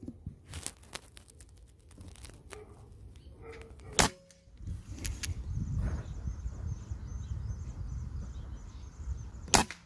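Two shots from a PCP air rifle, each a single sharp crack, one about four seconds in and one near the end, with a low rumble between them.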